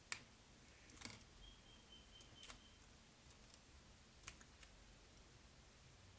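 A handful of faint clicks and taps from a plastic gear rack being handled and pressed against a wooden board, fixed on with double-sided tape.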